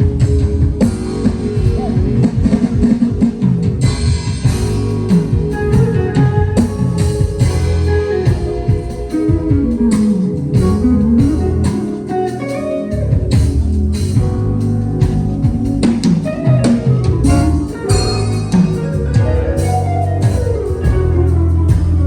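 Live band playing an instrumental at a sound check: drum kit with a steady bass under melodic lines that slide up and down in pitch.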